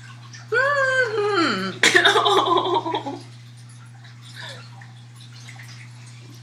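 A young woman's wordless reaction of disgust to bad-tasting food: a drawn-out whining moan that rises and falls, then, about two seconds in, a louder, cracking outburst of strained laughing and gagging that dies away about a second later.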